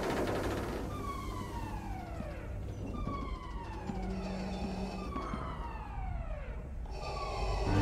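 Starship alarm sounding in the film soundtrack: a wailing tone that falls in pitch, repeated about every two seconds.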